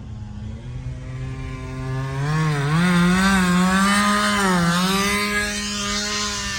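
Chainsaw running at high revs, getting louder about two seconds in, its pitch dipping and recovering a few times.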